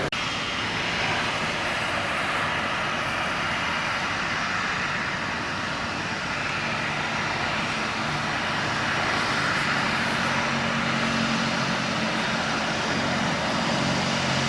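Jet airliner engines running steadily, a broad rushing noise with a low hum that grows stronger about ten seconds in.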